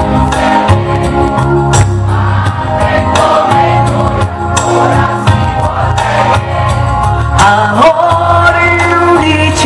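Live pop song: a woman singing into a microphone over band music with a steady bass line and regular drum beats.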